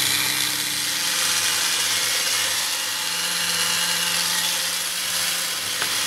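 Handheld electric mixer running steadily, a continuous motor whir with its single beater spinning.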